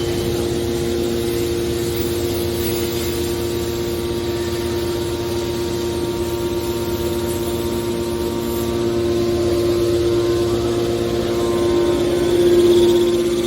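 Scrap metal baler's hydraulic power unit running with a steady, pitched hum, growing louder near the end.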